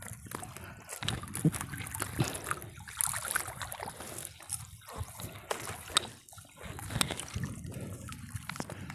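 Wet gill net being hauled by hand out of lake water, water trickling and dripping off the mesh with irregular small splashes and sharp drips.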